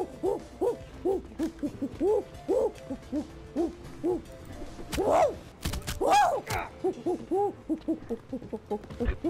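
A woman's voice imitating a gorilla: a fast run of 'hoo hoo' hoots, about two or three a second, broken by two louder, higher cries about halfway through.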